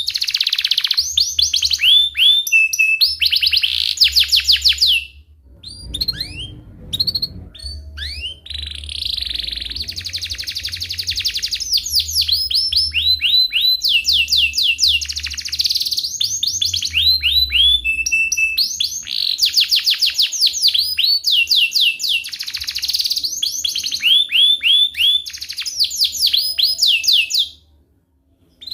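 Domestic canary singing a long, loud song of rapid rolling trills and chirps, each run made of fast repeated falling notes. There is a brief break about six seconds in, and the song stops just before the end.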